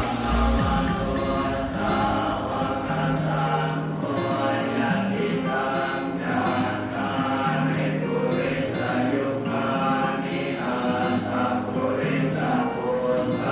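Background music with several singing voices, the notes held in a slow chant-like line.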